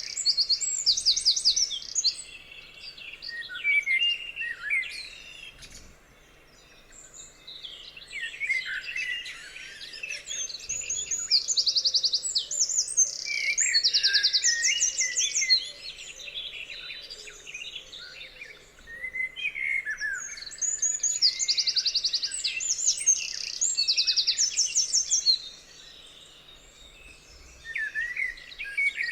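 Songbirds singing: fast, high-pitched trills repeated every second or two, mixed with varied chirps and whistled phrases, coming in bursts with short lulls between them.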